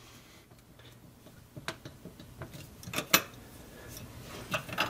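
A few sharp metallic clicks and clinks as the brass nut and parts of an old sink pop-up drain are handled and unscrewed by hand, spread out over a quiet background.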